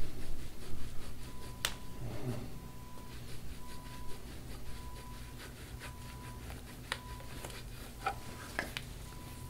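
A gua sha scraping tool rubbing over the oiled skin of a back, with a few sharp clicks as it crunches over scar tissue.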